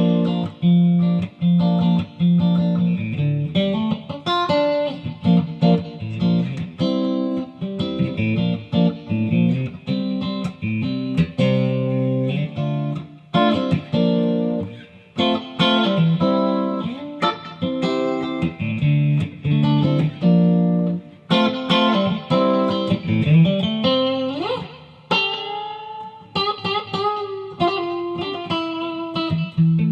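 Custom-built Stratocaster-style electric guitar played, picked single notes and chords, with one rising slide in pitch about three quarters of the way through.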